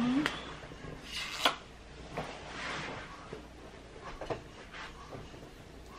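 A clear plastic phone case being pressed onto an iPhone 11 Pro Max by hand: plastic rubbing and scraping against the phone, with several sharp clicks as the case is snapped on. The loudest click comes about one and a half seconds in.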